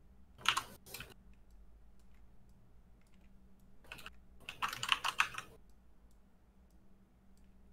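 Computer keyboard keys clattering in short bursts: two brief ones near the start and a longer run of quick keystrokes about four to five and a half seconds in, over a faint steady low hum.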